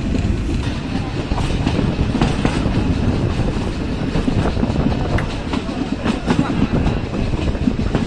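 Nilgiri Mountain Railway toy train running along its metre-gauge track: a steady rumble with irregular clicks and clacks of the wheels over the rails.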